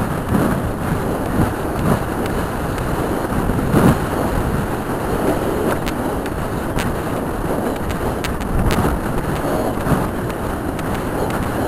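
Wind buffeting the microphone while a horse gallops cross-country, its hoofbeats thudding in a loose, repeating stride rhythm under the rush, with scattered sharp clicks.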